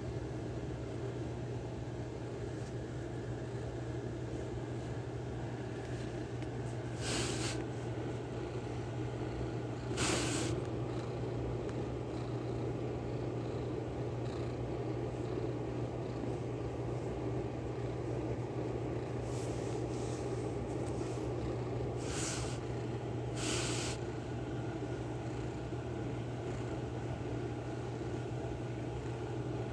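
Kitten purring close to the microphone over a steady low hum, with a few brief rustling bumps against the mic.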